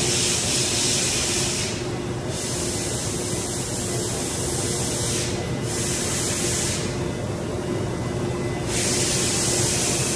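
Northwood 255-FAMT CNC router running with a loud air hiss that cuts out about two seconds in, comes back around six seconds, and returns strongly near the end, over a steady hum.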